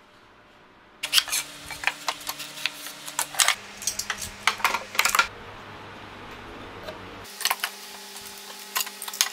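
Clicks and knocks of a plywood jig and steel F-clamps being handled and fitted on a workbench, starting about a second in.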